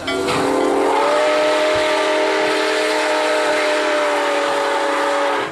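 Nickel Plate Road steam locomotive's chime whistle blowing one long blast, several tones sounding together. The pitch lifts slightly about a second in, and the blast cuts off sharply near the end.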